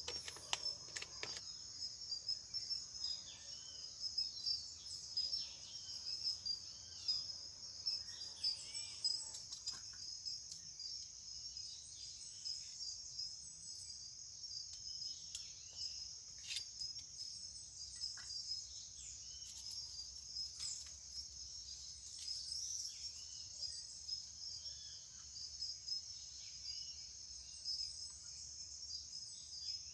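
Insects trilling in one steady high-pitched drone, with scattered short bird chirps and a few light clicks over it.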